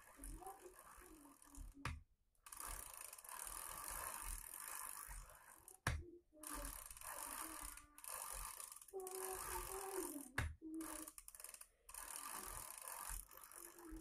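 Child's bicycle pedalled in place, its chain and rear freewheel whirring and ratcheting in stretches of a few seconds, with brief pauses and a few sharp knocks.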